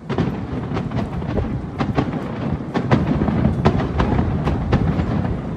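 Aerial fireworks shells bursting in quick succession: a continuous rumble of booms with sharp cracks, about two or three a second.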